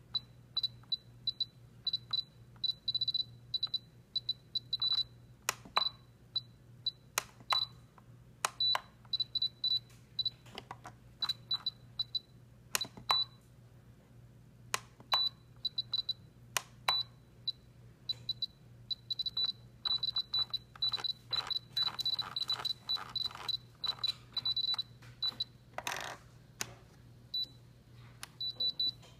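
Key beeps from a T-Six 2.4 GHz six-channel RC transmitter as its menus are scrolled: short high beeps at one pitch, singly and in quick runs, with the clicks of its buttons and dial being pressed.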